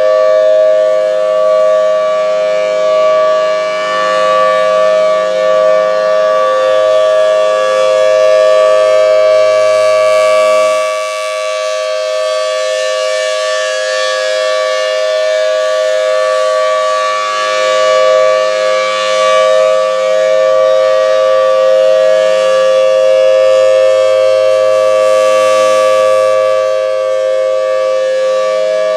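Federal Signal Thunderbolt 1003 outdoor warning siren sounding a steady signal at full speed. Its two-note chord holds one pitch while its loudness rises and falls slightly.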